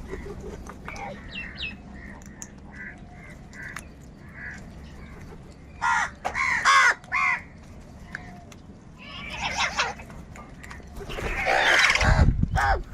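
Crows cawing: three loud harsh caws about six to seven seconds in, more about ten seconds in, and a long loud call near the end with a low rumble beneath it. Soft short chirps come before the caws.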